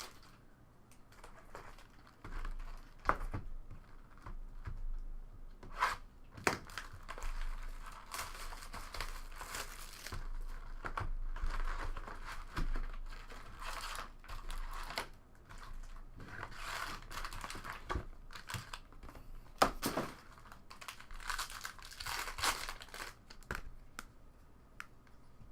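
Foil trading-card pack wrappers being torn open and crinkled, on and off, with a few sharp clicks, the loudest just before 20 seconds in.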